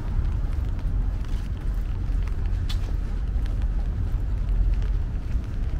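City street ambience: a steady low rumble of traffic, with a few faint light ticks.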